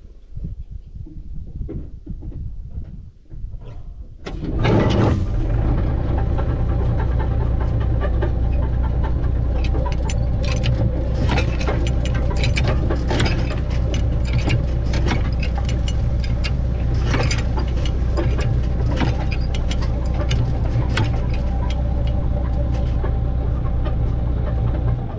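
Massey Ferguson tractor engine pulling a loaded chicken-manure spreader, with the spreader's chain-and-gear drive clattering and rattling. A low rumble at first, then about five seconds in the sound jumps to a loud steady drone with constant sharp clanks from the drive.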